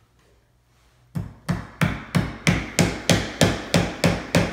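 Child's small claw hammer driving a small nail into a pine kit piece: a steady run of about a dozen even blows, roughly three a second, starting about a second in.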